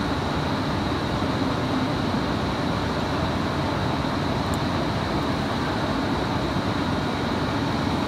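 Steady background hum and hiss at an even level, with no distinct events.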